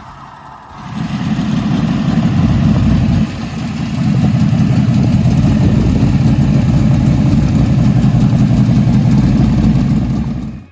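Big-block Chevrolet V8 in a Camaro running very loud through an exhaust with a leak at the right-side header collector gasket. It swells up about a second in, drops briefly near three seconds, then holds steady and loud before cutting off abruptly.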